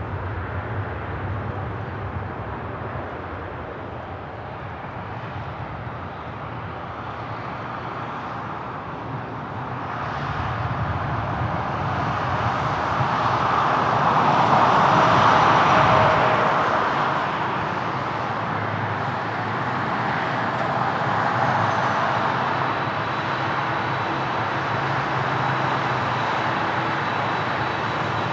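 Jet airliner's engines passing, the noise swelling to a peak about halfway through and then easing to a steady level.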